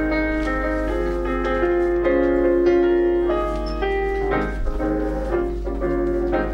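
Piano playing the introduction to a song, a run of chords that change about once a second.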